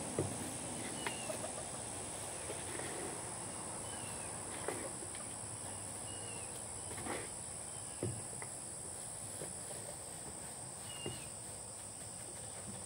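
A steady high-pitched insect drone with a few short bird chirps, and scattered soft rustles and knocks as wood-shaving bedding is spread by hand inside a plastic pet carrier.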